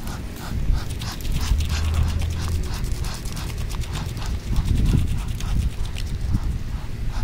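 A Muscovy duck's bill pecking and scooping seed from a person's palm: a quick run of light, even taps, about three to four a second, over a low rumble of wind on the microphone.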